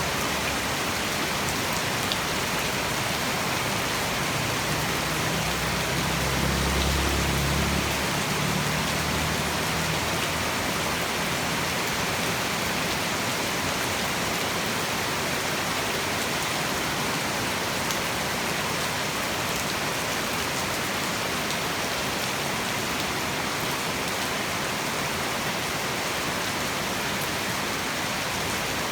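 Heavy tropical rain pouring steadily, a dense, even hiss of rain on surfaces. A low rumble swells and fades about six to nine seconds in.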